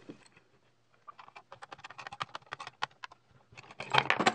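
Steel C-clamps being screwed down to press ball bearings into a wooden wheel: a run of quick, light clicks from the clamp screws and handles. Near the end comes louder metal clatter as the clamps are handled and taken off.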